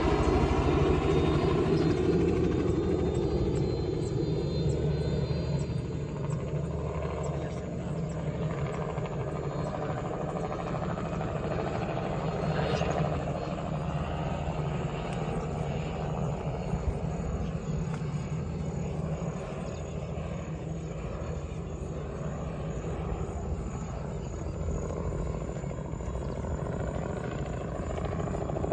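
Helicopter running, its rotor beating steadily with engine whine, a little louder in the first couple of seconds.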